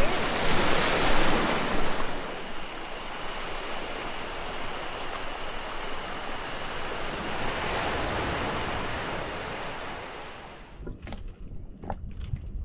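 Surf washing onto a beach, a steady hiss of breaking waves that surges loudest in the first two seconds. About eleven seconds in it cuts off abruptly to a quieter background with scattered light clicks and knocks.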